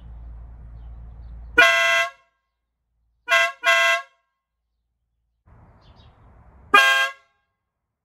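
Toyota Sienna car horn sounded with a Farbin compact air horn and the stock high-frequency horn together: a half-second blast, a quick double toot, then another half-second blast.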